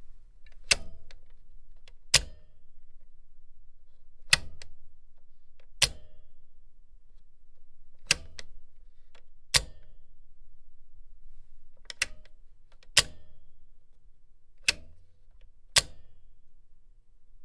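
Sharp mechanical clicks from a tool, ten in all, coming in pairs one to one and a half seconds apart, over a faint low hum.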